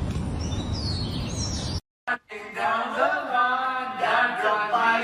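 Outdoor background noise with a few faint bird chirps, then an abrupt cut to a moment of silence, after which a voice starts singing a melodic, chant-like line.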